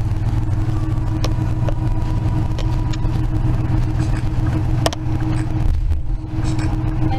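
Bus engine and road noise heard from inside the cabin while riding: a steady low drone with a faint hum, broken by a couple of sharp clicks.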